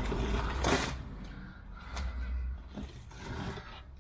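Rustling and scraping from someone working under a van, with a sharp click about two seconds in.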